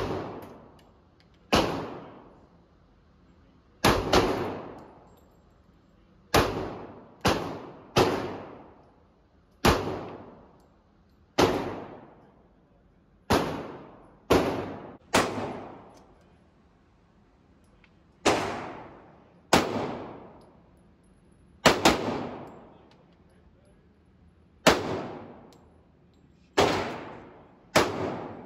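Glock pistol shots fired at a slow, uneven pace, about twenty in all, roughly one every second or two with a few quick pairs. Each shot is a sharp crack with a long echoing tail in the enclosed indoor range.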